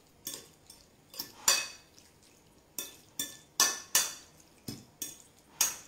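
An eating utensil clinking and scraping against a ceramic plate, with a dozen or so sharp, irregular clinks, as chopped salmon tartare is stirred to work in the olive oil dressing.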